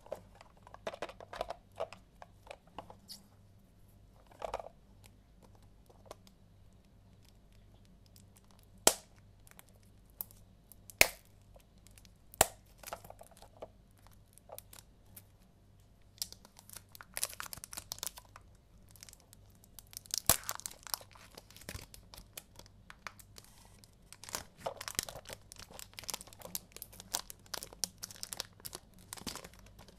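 Cellophane (plastic foil) wrapper on a new compact cassette case being picked at and torn off by fingers. Scattered clicks and a few sharp snaps come first, then dense crinkling and crackling of the foil through the second half.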